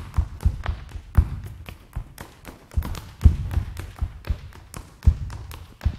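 Irish step dancer's shoes beating out an unaccompanied jig step on the floor: sharp taps and heavier thuds, two or three a second in an uneven rhythm.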